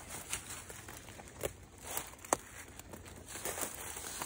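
Footsteps in rubber boots crunching through dry fallen leaves and grass, a few separate crackling steps.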